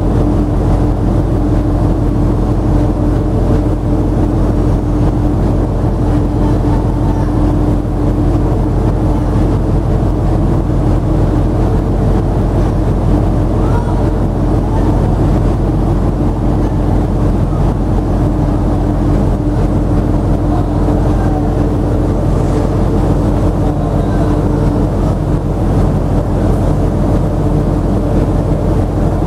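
Steady loud drone of a container ship's machinery while under way, heard inside a steel cargo hold: a low rumble with a constant hum running through it.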